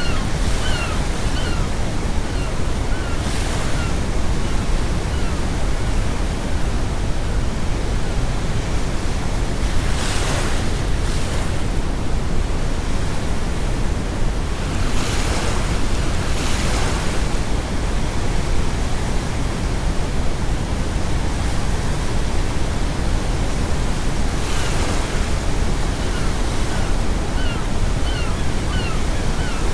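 Ocean waves breaking in several surges over a steady deep rumble of brown noise. Seagulls give runs of short falling calls near the start and again near the end.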